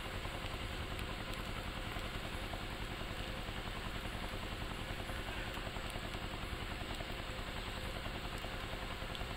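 A steady low mechanical drone with a fast flutter, like a small engine idling, under an even hiss.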